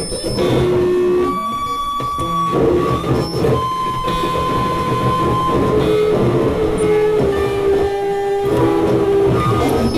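Modular synthesizer played live: a dense wash of electronic noise with held tones that jump to a new pitch every second or two, and sudden breaks in the texture.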